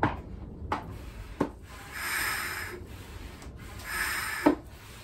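Hand-operated vacuum oil extractor being pumped: a hiss of air with each stroke, roughly every two seconds, with sharp knocks from the pump between strokes. The pumping builds vacuum to draw engine oil up through a tube down the dipstick pipe.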